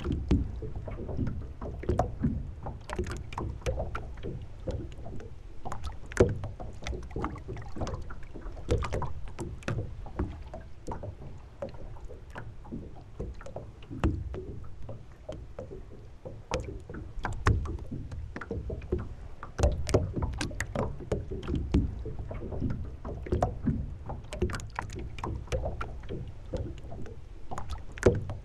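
Water slapping and lapping against the hull of a moored sailboat, with irregular knocks and clicks from the boat as it rocks, over a steady low rumble.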